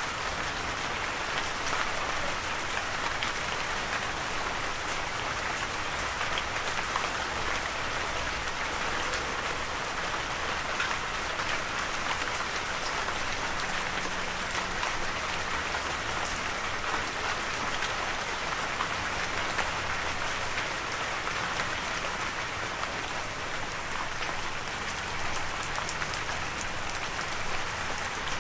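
Steady rain falling, an even patter of drops on a surface with fine drop ticks on top.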